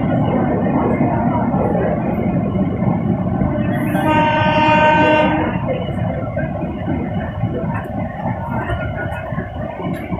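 Suburban local train running with a steady rumble and rattle. A train horn sounds once about four seconds in, one steady blast lasting about a second and a half.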